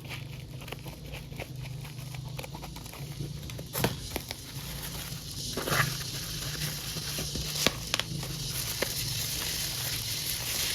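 A parcel being handled and opened by hand: scattered crinkles, clicks and taps of packaging, a few louder ones about four, six and eight seconds in, over a low steady hum.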